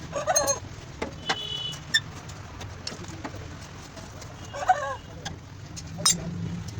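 A chicken clucking twice, once right at the start and again about two-thirds of the way through. Several sharp taps come between the clucks, one ringing briefly like struck metal, over a steady low hum.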